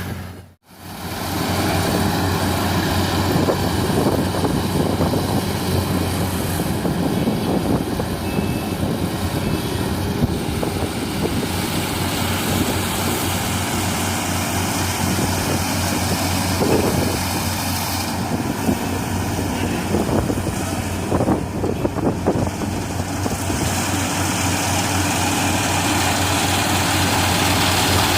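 Combine harvester running steadily at work, a dense engine-and-machinery sound with a strong low hum. The sound cuts out briefly about half a second in.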